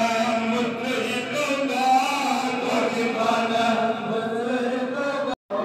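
Voices chanting a sustained, wavering devotional chant, cut off briefly by an edit near the end.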